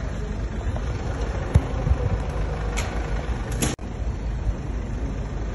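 Steady low rumble of idling vehicles, broken by a few short knocks and clicks. The sharpest knock comes about one and a half seconds in.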